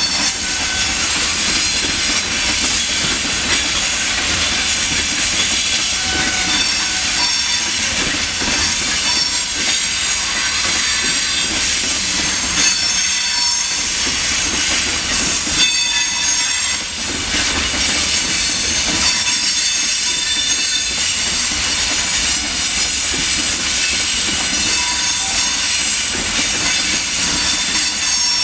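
Freight train of open gondola wagons rolling past: a steady rumble and clatter of steel wheels on the rails, with high-pitched squealing tones from the wheels.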